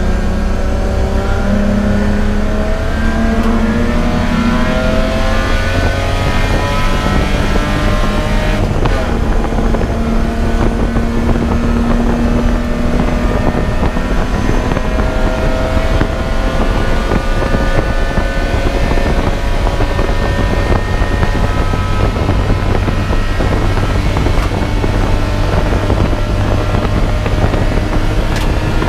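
Race car engine under hard acceleration, heard from inside the car over heavy road and wind noise: its pitch climbs steadily, drops at a gear change about eight seconds in, then climbs slowly again.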